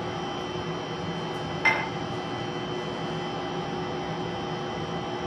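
Steady room hum with a few faint steady tones, and one short tap or clink about a second and a half in.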